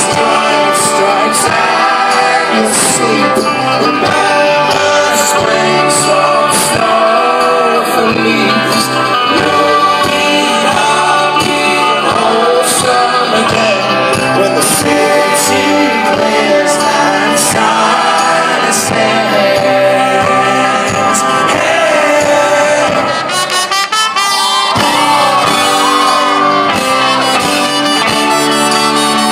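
Live folk-rock band playing, with a male lead voice singing over acoustic instruments and a brass section, and a steady beat in the first half. There is a brief drop in level about three quarters of the way through.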